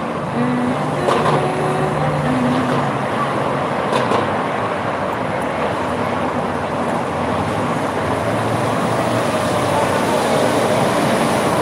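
Steady road traffic noise, a continuous rush of passing vehicles.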